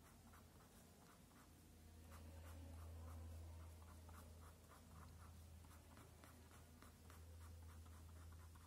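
Faint scratching of an ink pen on paper in quick short strokes: cross-hatching, several strokes a second. A low steady hum runs underneath.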